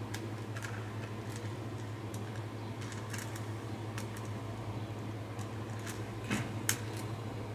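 Scattered light clicks of a green beaded chain being handled and pressed into a circle on a charger plate, the sharpest pair near the end, over a steady low hum.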